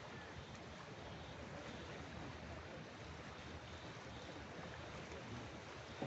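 Steady outdoor wash of gentle sea waves and breeze, with no distinct events.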